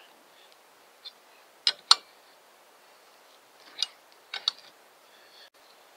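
About six short, sharp metallic clicks from wrenches on a power steering pulley installation tool as its flange nut is tightened to press the pulley down onto the pump shaft. The loudest comes about two seconds in.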